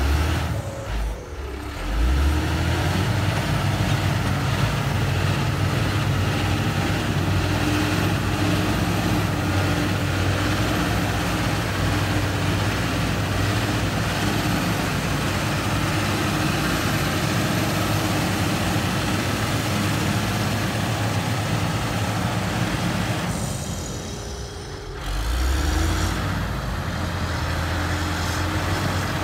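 LiuGong 4180D motor grader's diesel engine running steadily under load as the grader pushes red soil with its blade. The engine sound drops briefly twice, about a second in and again near the end.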